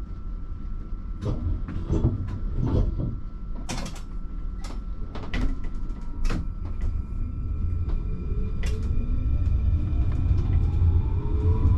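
A RandstadRail light-rail tram running with a steady low rumble and several irregular sharp clacks. From about nine seconds in, a rising whine of the traction motors sets in as the tram accelerates, and the sound grows louder.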